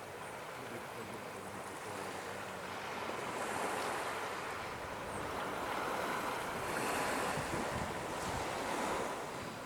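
Ocean surf washing on the beach, swelling and easing every few seconds, with wind on the microphone.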